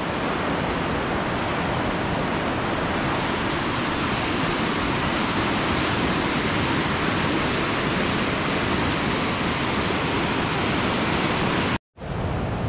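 Steady, even rush of a fast-flowing white-water mountain river. It cuts out for an instant near the end and returns a little quieter.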